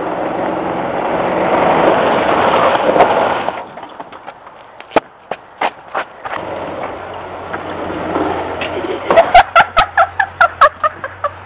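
A loud rushing noise cuts off abruptly about three and a half seconds in, followed by a few sharp clicks. Then a small utility golf cart runs with a steady low hum, and a rapid run of short pitched sounds comes near the end.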